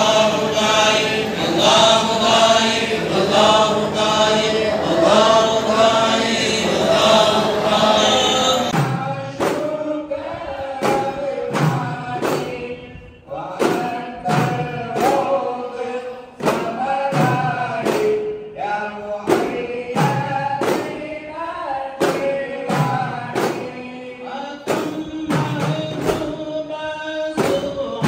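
Many men's voices chanting dhikr together in unison. About nine seconds in it changes to men singing a devotional song over hand-struck frame drums (dafs) beating in a regular rhythm.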